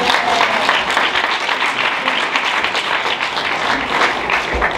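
Audience applauding, many hands clapping, thinning slightly near the end.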